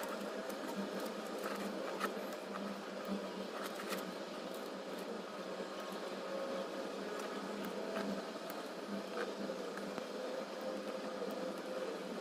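Scattered light clicks and taps of a diamond painting drill pen picking resin drills from a plastic tray and pressing them onto the canvas, over a steady background hum.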